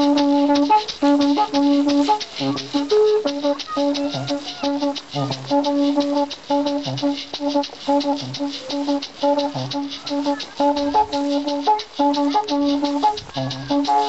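Background music: an instrumental passage with a repeating melody of held notes over a fast, steady percussion beat.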